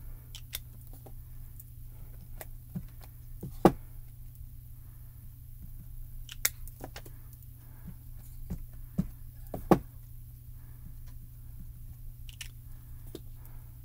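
Small cube ink pads dabbed and tapped onto clear photopolymer stamps on an acrylic block: scattered light clicks and taps, the sharpest about four, six and ten seconds in, over a steady low hum.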